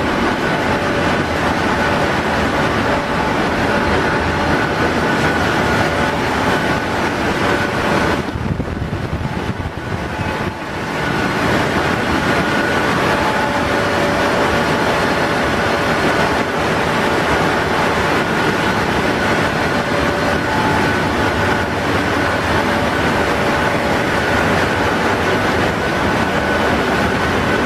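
Ship's engine room machinery running steadily and loudly, a dense noise with a few constant whining tones over it. It goes quieter and duller for a couple of seconds about eight seconds in.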